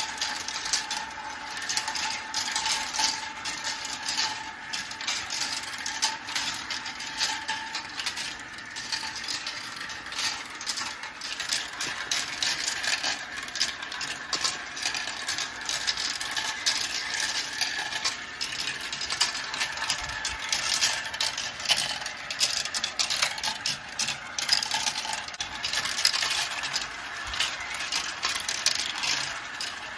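Marbles rolling and clattering down a marble run track: a continuous stream of rapid clicks and rattles as they knock against the track and each other.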